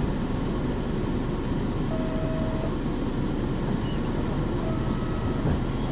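Nissan Diesel KC-UA460HSN city bus running, a steady low diesel engine and road noise. A short faint high tone sounds about two seconds in.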